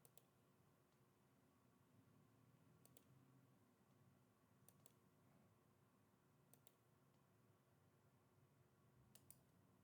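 Faint computer mouse clicks, in close pairs every second or two, over near silence.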